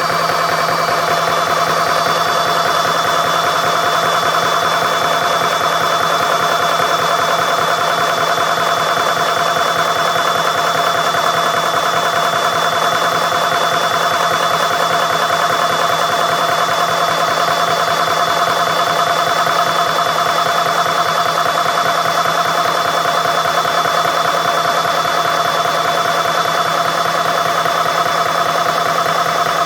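CS6 Pro high-pressure PCP air compressor running steadily under load, with a constant whine over its motor hum, as it builds pressure in its filter before the filter valve opens to fill the rifle's air tank.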